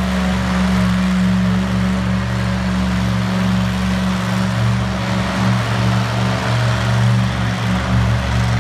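Monster truck engine running loud at a low, steady drone, its pitch wavering a little in the second half as the truck rolls across the dirt.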